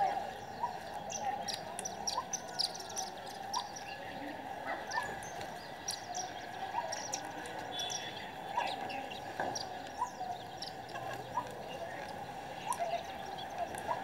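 Sparrows chirping: many short, high chirps scattered irregularly, over a steady background hum.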